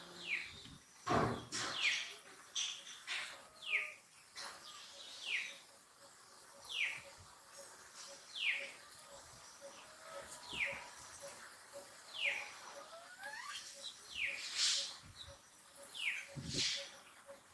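A bird calling over and over, a short falling chirp about every second and a half, with a faint steady run of low ticks, about three a second, behind it. A few knocks or rustles come in the first two seconds.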